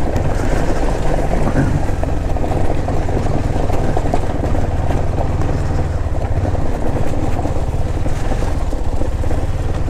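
KTM 390 Duke's single-cylinder engine running as the motorcycle is ridden, steady and loud, with a heavy low rumble.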